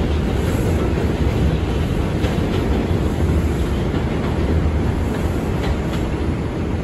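Interior of an R142 subway car running at speed: a steady rolling rumble of steel wheels on the rails, with a few faint rail-joint clicks.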